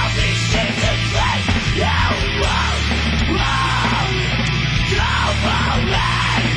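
Live rock band playing loud and steady: distorted electric guitars, bass and drums, with a singer shouting over them in a heavy, punk-like style.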